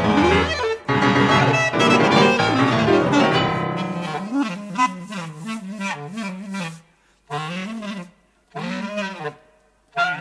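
Free jazz improvisation for piano and clarinet: dense playing for about four seconds, then thinning to a lone melodic line. This line moves in short phrases of sliding, bending pitch, broken by brief pauses.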